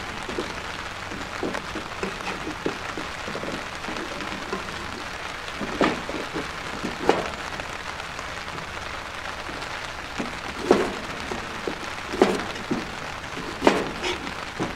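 A chef's knife chopping sweet potato on a plastic cutting board, making sharp knocks at irregular intervals, with the steady hiss of heavy rain underneath.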